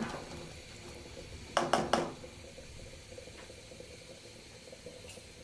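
A spatula stirring chickpea curry in a pan over a faint steady simmer, with about three quick knocks of the spatula against the pan a little under two seconds in.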